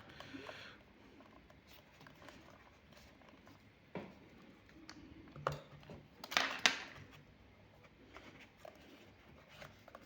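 Small plastic clicks and scraping as the snap-fit plastic shell of a security camera is pried and worked at by hand, with a louder scrape about six and a half seconds in.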